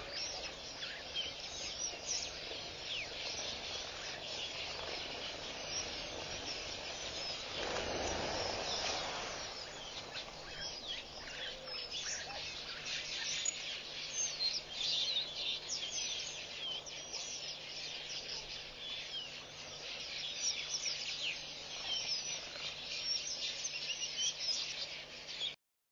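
Outdoor bush ambience: many birds chirping and calling over a steady hiss, with a louder rushing noise about eight seconds in. The sound cuts off abruptly near the end.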